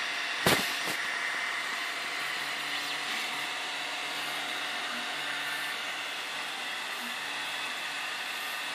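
RepRapPro Ormerod 3D printer running, a steady mechanical whir with a few faint steady tones. A sharp knock about half a second in is the loudest sound, with a fainter one just after.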